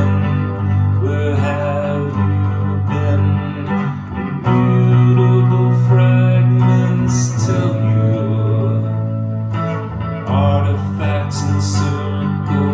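Music: a hollow-body electric archtop guitar played through an amplifier, sustained chords changing about every three seconds over a strong low note.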